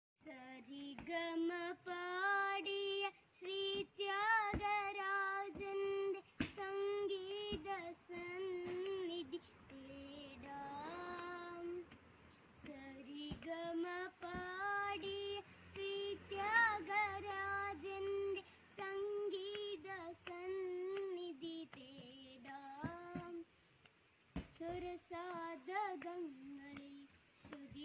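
A young boy singing solo and unaccompanied, holding wavering notes in phrases with brief pauses between them.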